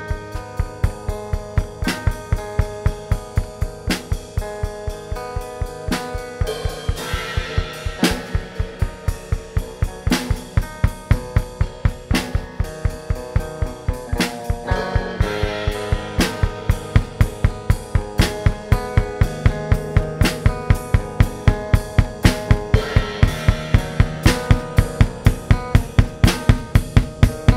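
Instrumental band music: guitar over a drum kit keeping a fast, steady beat on kick and snare, getting louder in the second half.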